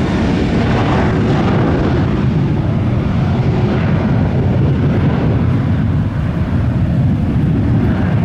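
Boeing 737 twin jet engines at takeoff thrust during the takeoff roll on a wet runway, loud and steady.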